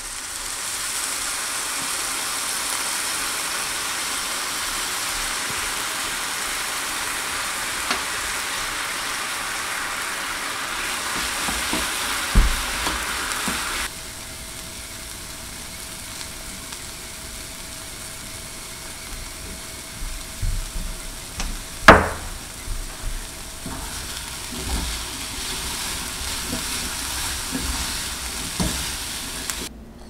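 Chickpeas sizzling in a nonstick frying pan as a liquid is poured over them and they are stirred with a wooden spoon, with a few sharp knocks of the spoon against the pan. The sizzle is loud at first and drops suddenly about halfway through to a quieter, steady sizzle.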